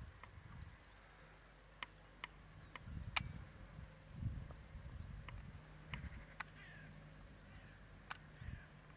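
Faint open-air ambience: scattered sharp clicks and a few distant bird chirps over a low steady hum.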